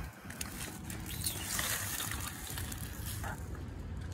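Water splashing and trickling, with a louder hiss for about a second near the middle, over a low wind rumble on the microphone.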